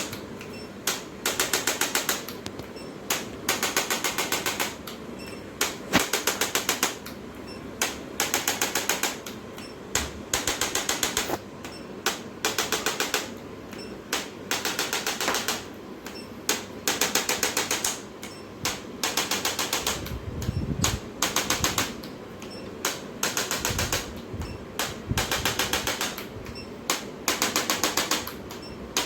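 Electric chiropractic adjusting instrument firing rapid clicking thrusts in short bursts, about one burst a second with brief pauses between.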